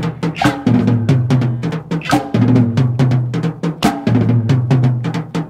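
Rock band recording with a busy drum kit pattern of rapid snare and bass drum hits over a sustained bass line.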